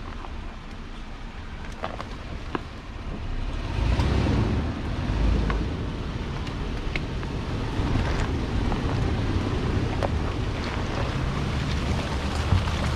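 An off-road vehicle driving over a rough dirt trail: a low rumble with wind on the microphone and scattered small knocks and clicks from the bumps. The rumble grows louder about four seconds in.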